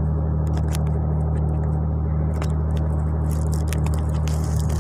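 Steady low drone of a ship's machinery, with scattered close clicks and scrapes of handling on top.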